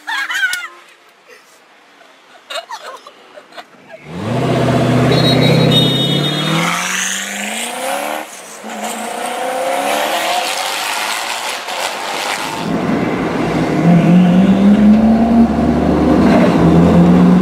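Supercar engine accelerating hard from about four seconds in, its pitch climbing and dropping back at each gear change, easing off briefly and then pulling hard again near the end.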